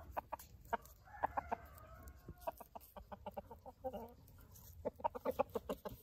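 Young gamecock stag (Thai x Aseel x Red Pama cross) clucking: a scattered series of short clucks, with a quicker run of them near the end.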